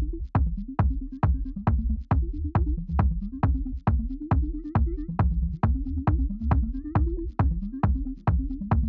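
Electronic background music with a steady driving beat: a sharp hit a little over twice a second over a deep bass and a short repeating synth melody.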